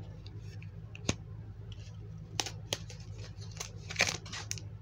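Foil Pokémon booster-pack wrapper crinkling as it is handled: a series of sharp, separate crackles, the loudest about four seconds in, over a steady low hum.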